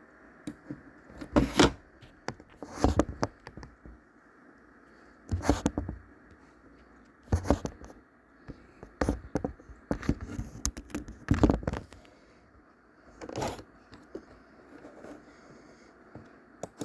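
Irregular knocks, thuds and scrapes, about eight louder ones spread through, with smaller clicks and quiet room tone between.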